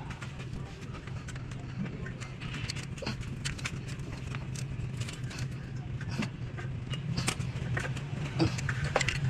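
Hand tools clicking and knocking against metal parts of a car engine during sensor replacement, with the taps coming more often and louder near the end, over a steady low hum.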